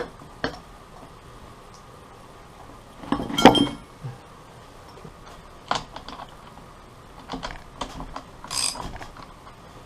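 Metal differential parts and hand tools being handled during reassembly: scattered sharp clicks and clinks, with a louder clatter about three and a half seconds in and another short run of clicks near the end.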